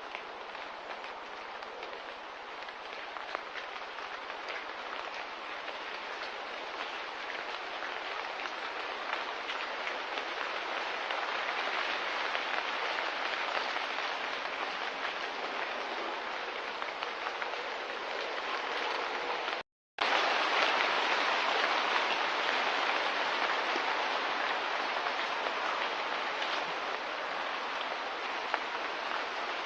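Steady rain-like hiss with no distinct tones, cutting out completely for a split second about two-thirds of the way through, then resuming slightly louder.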